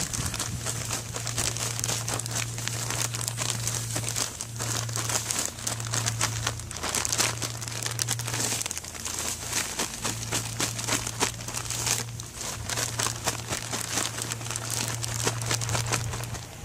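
Plastic zip-top bag crinkling and rustling continuously as catfish pieces are shaken inside it to coat them in breading, with brief pauses between shakes.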